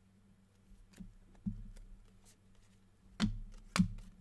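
Trading cards being handled on a table: a few soft taps and clicks, with two sharper ones a little over three seconds in, over a low steady hum.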